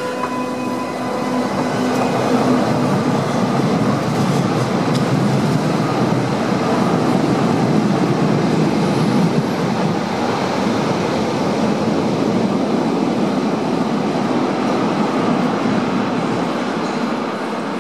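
TW 6000 light-rail train, a double unit, pulling out of an underground station: a steady rumble of wheels and running gear that builds over the first two seconds and holds as the train runs on into the tunnel.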